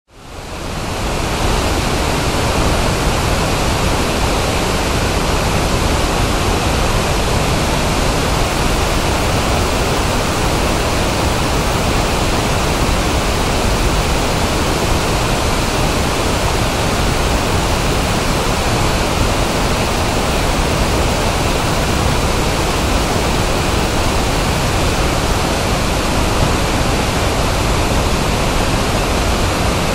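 Otoji Falls, a broad river waterfall, rushing in a steady, even roar of falling water that fades in over the first second. Its sound has a 1/f (pink-noise) spectrum between 40 and 6000 Hz.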